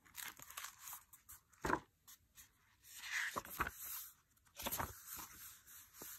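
Paper rustling and pages being flipped as a tarot deck's small guidebook is leafed through, with a few short soft knocks of handling.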